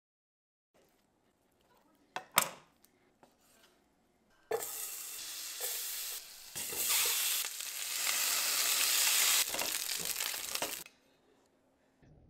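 A sharp clack about two seconds in, then butter and minced garlic sizzling in a hot frying pan. The sizzle starts suddenly, gets louder partway through and cuts off near the end.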